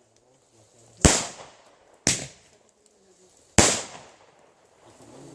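Fireworks going off: four sharp bangs at uneven intervals of one to two seconds, each trailing off in an echo.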